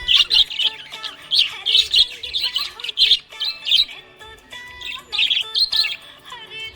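Small pet parrots chirping and chattering in quick, high bursts several times a second, with background music holding steady notes underneath.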